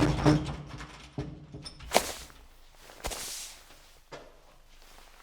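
A door being shut: a sharp knock about two seconds in, then a short rush of noise a second later.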